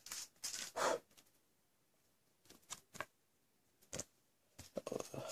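Soft, brief rustles and light ticks of a trading card and a thin plastic card sleeve being handled as the card is slid into the sleeve: a few rustles in the first second, then scattered faint ticks and rustles.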